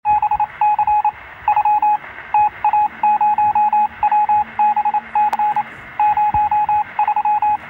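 Electronic beep tone at one steady pitch, keyed on and off in quick irregular groups of short and longer beeps like Morse code, over a faint low hum.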